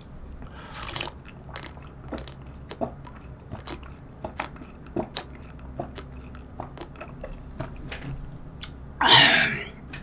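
A person drinking cold spicy noodle broth straight from the bowl: a string of small wet sips and gulping clicks, then a louder breathy burst near the end.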